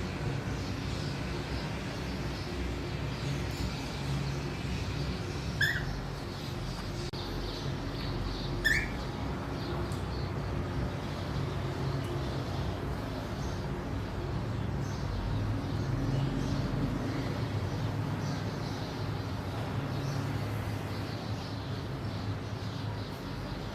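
A pet parrot gives two short, rising chirps about three seconds apart, over a steady low rumble.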